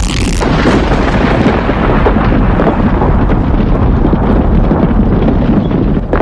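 Thunder sound effect: the end of a sharp crack, then a long, loud rolling rumble that stops about six seconds in.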